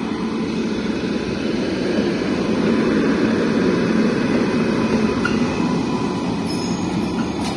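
WAP 5 electric locomotive running light engine past at close range: a steady rumble of its wheels on the rails and its running gear, holding level as it goes by.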